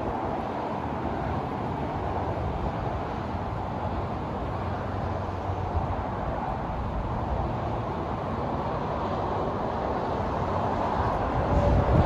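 Steady rumble of traffic on a highway below, growing somewhat louder near the end.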